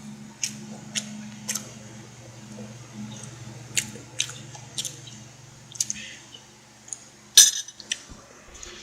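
Eating sounds: about a dozen irregular sharp clicks, the loudest near the end, over a low steady hum that stops about seven seconds in.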